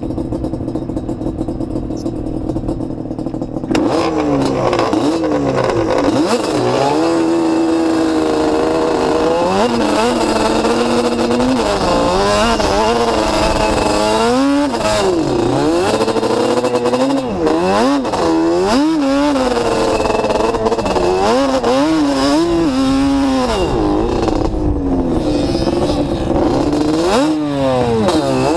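Sport ATV engine idling, then from about four seconds in revving up and down over and over as the quad is ridden across sand dunes.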